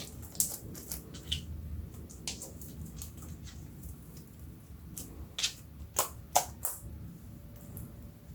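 Slime being mixed and squeezed by hand, giving scattered sticky clicks and crackles, with the loudest pair of pops about six seconds in.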